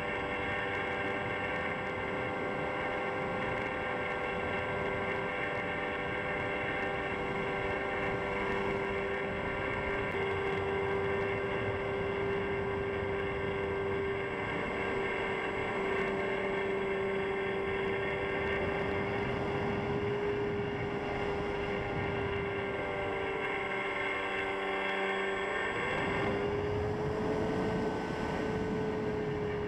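Electric FPV model plane's motor and propeller running steadily in flight, a droning hum whose pitch wavers slightly and shifts up near the end, with wind rushing over the onboard microphone.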